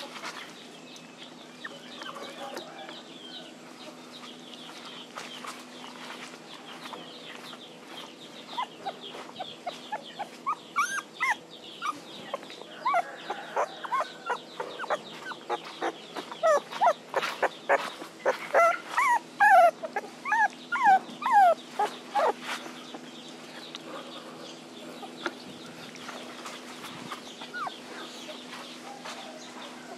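Young puppies whimpering and crying in short high-pitched whines that rise and fall, building from scattered cries about a quarter of the way in to a dense, loud run in the middle, then dying away. The cries are those of puppies left without their mother.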